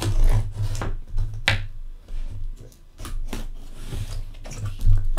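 A knife slicing through packing tape along the seam of a cardboard shipping box: short scrapes and sharp ticks of the blade on tape and cardboard, with the box being handled.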